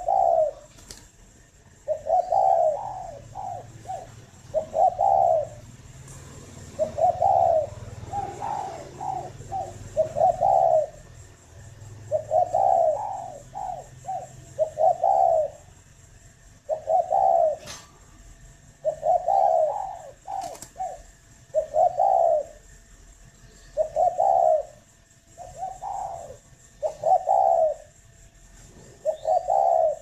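Spotted doves cooing: phrases of low, hollow coos repeated every couple of seconds, with a few faint sharp clicks.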